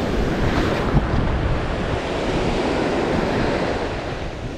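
Ocean surf breaking and washing up a sandy beach, with wind buffeting the microphone. A short knock comes about a second in.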